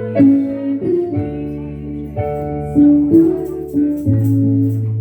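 Instrumental church music: guitar and bass holding sustained chords that change every second or so.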